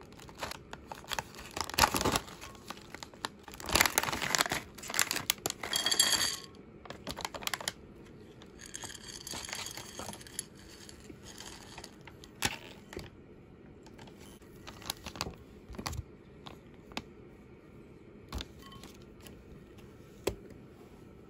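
Plastic snack bag crinkling and tearing open for the first several seconds, then the tiny chocolate puzzle pieces pouring out onto a plate, followed by scattered light clicks as the pieces are touched and moved on the plate.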